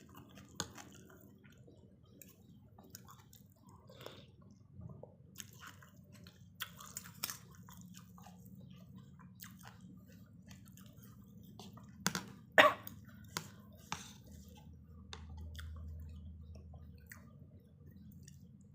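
A person eating noodle soup close to the microphone: soft wet chewing with scattered small clicks and squelches, and a couple of sharper clicks about twelve seconds in.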